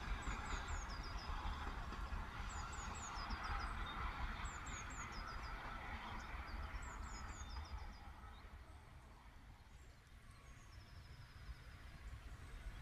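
Distant rumble and hiss of a Peppercorn A2 steam locomotive running with a train, fading away over the first eight seconds or so. A songbird sings over it in short phrases of three quick falling notes, about every two seconds, and ends with a short trill.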